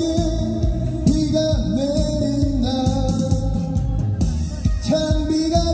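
A man singing a Korean trot song live into a microphone over a recorded backing track, through the stage PA, holding long notes with vibrato.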